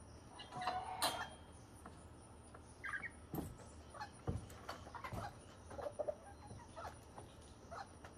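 Hens and chicks clucking and peeping now and then while pecking feed, with a few sharp knocks, the strongest about one second in.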